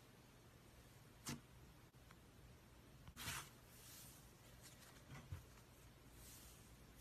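Faint, sparse squishes and crackles of snow slime being handled, with a few small clicks between them.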